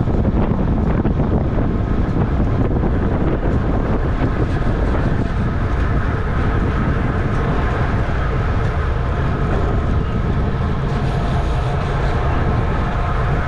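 Heavy wind rushing over the microphone of a bike-mounted camera on a road bicycle racing at speed, with a faint steady whine joining about five seconds in.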